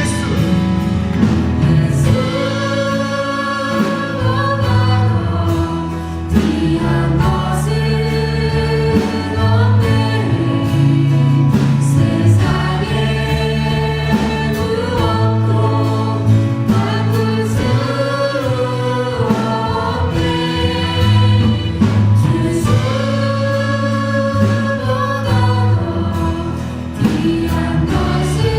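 A church praise team, several singers with a band, performing a contemporary worship song: sung melody over bass and drums.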